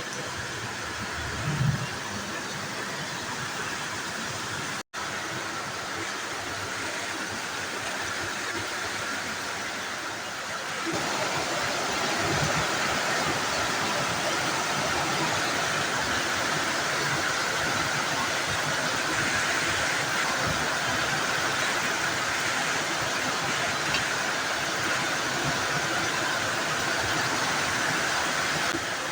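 Heavy rain pouring steadily in a storm, a continuous hiss of water; it gets louder about eleven seconds in.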